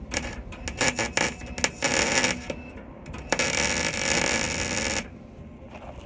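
Wire-feed welder arc crackling in a series of short stitch-weld bursts, then one longer run of about a second and a half, joining a steel subframe connector to the car's frame rail.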